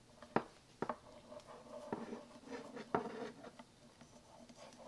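Thick wooden knitting needles clicking against each other four times, with soft rustling of chunky yarn, while stitches are bound off.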